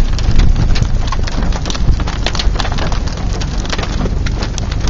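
Rain beating on a vehicle in many sharp, irregular ticks over a steady low rumble.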